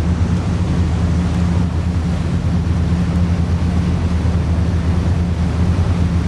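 Steady low drone of a river cruise boat's engine, with a constant rush of wind and water over it.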